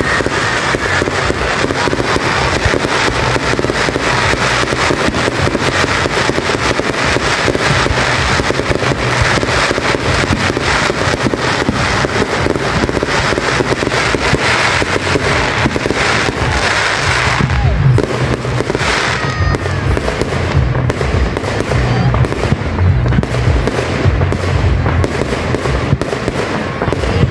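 Aerial firework shells bursting in a fast, continuous barrage of bangs and crackles. The barrage thins after about eighteen seconds into more separate, deeper booms.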